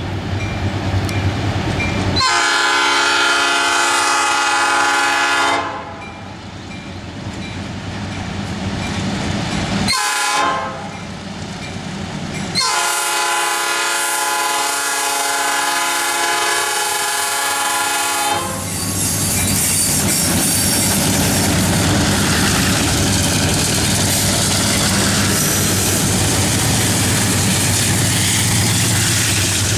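Multi-chime Nathan air horn on an EMD E8A diesel locomotive blowing three blasts: a long one, a short one about 10 s in, and another long one lasting about six seconds. Then the diesel locomotives and passenger cars run past close by with a steady rumble and wheel clatter.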